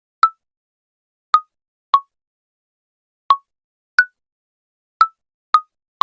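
Mobile phone keyboard key-press sound: a short pop whose pitch shifts slightly from one key to the next, sounding about seven times at an uneven typing pace.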